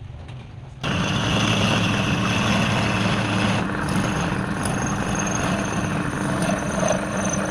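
Woodturning lathe running steadily, cutting in abruptly about a second in with a low motor hum and a thin high whine over the noise.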